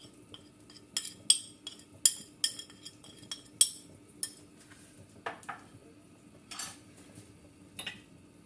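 Metal spoon clinking and scraping against a small ceramic plate as seasoning is knocked off it: a quick run of sharp clinks, then a few duller knocks in the second half.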